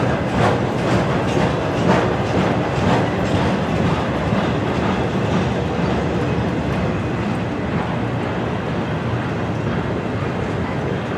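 Double-stack intermodal freight train's container-laden well cars rolling past, steel wheels clacking over rail joints about twice a second in the first few seconds, then settling into a steady rumble.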